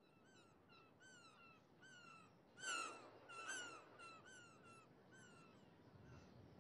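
An animal calling: a quick series of short, faint calls that each drop in pitch, about two a second, with two louder calls a little before the middle.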